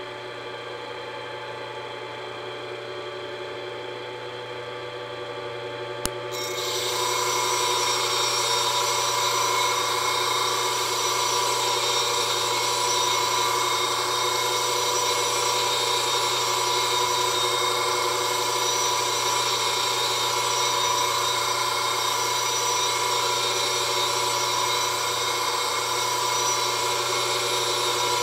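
Clipper blade sharpening machine running, its motor and dust-control blower giving a steady hum. About six seconds in there is a click, then a loud, steady grinding hiss starts as the comb and cutter blades are pressed onto the spinning abrasive disc, throwing sparks.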